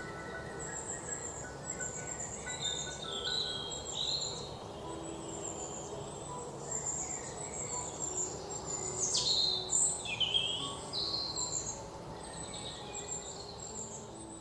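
Several birds chirping and whistling, with quick rising and falling notes that are busiest about two thirds of the way through, over soft, slow instrumental music with long held notes.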